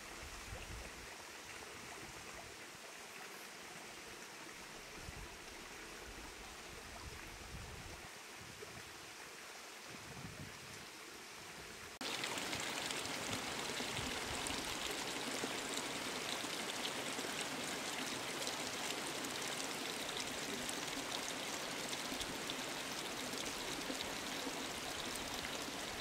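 Steady rushing of a forest stream's running water. It is faint at first, then jumps abruptly louder about halfway through and stays even from there.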